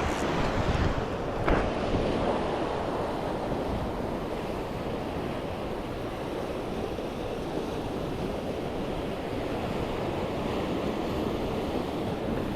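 Sea waves washing on the shore with wind on the microphone, a steady rushing noise; a single short knock about a second and a half in.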